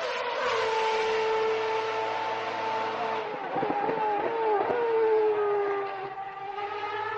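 Racing car engine held at high revs on a steady high note, its pitch dipping and wavering in the middle before settling again.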